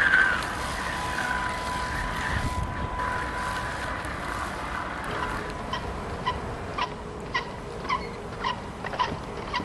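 Wind rushing over the microphone of a small camera mounted on an RC model trimaran, with a thin steady whine underneath. From about halfway, short squeaks repeat roughly twice a second.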